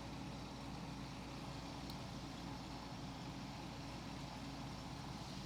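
Vintage Capehart 40-pint dehumidifier running: a steady hum from its fan and Embraco refrigeration compressor. Its whole evaporator coil has gone cold, a sign that the refrigeration system is working.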